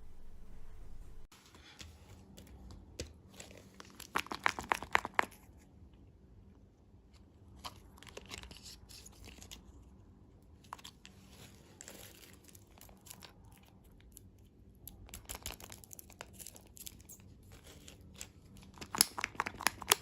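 Close crinkling and crunching, as of candy wrappers and crunchy sweets, in five short crackly bursts with quieter gaps between them. The bursts are loudest about four seconds in and again near the end.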